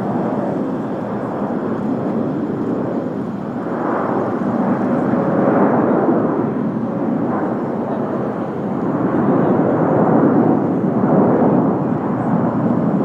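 Boeing 787-9 Dreamliner jet engines at takeoff power: a steady, rumbling jet roar that swells and eases in slow waves, loudest about six seconds in and again around ten to eleven seconds.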